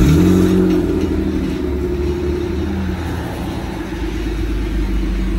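Mitsubishi Eclipse GT's 3.0-litre 6G72 V6 starting up, heard at the exhaust tip. It catches suddenly, flares briefly with rising pitch, then settles within about a second into a steady idle.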